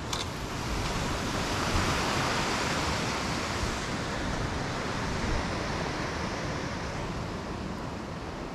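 Sea swell washing against a rock ledge below, mixed with wind on the microphone: a steady rushing noise that swells about two seconds in and slowly eases.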